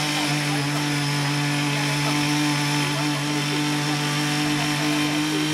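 Ching Yee CY50-TH48 mini garden tiller's 48.6cc engine running steadily at a constant pitch while its rotary blades till garden soil.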